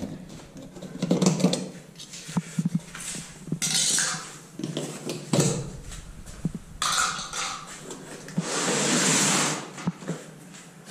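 Handling noises from a delivered parcel: irregular knocks and clatter, with a short scraping, tearing sound about four seconds in and a longer one at about eight and a half seconds.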